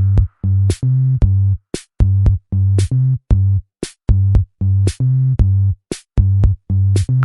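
Electronic background music: a drum-machine beat with sharp hi-hat ticks over short, punchy synth bass notes in a quick, even rhythm.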